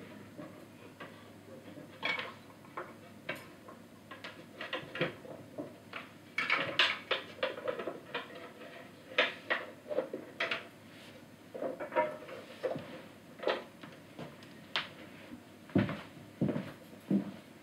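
A wooden kamishibai stage being closed up by hand: its small hinged doors are swung shut and latched, giving a run of irregular wooden and metal clicks and knocks. A few heavier, deeper thumps near the end, from footsteps walking away.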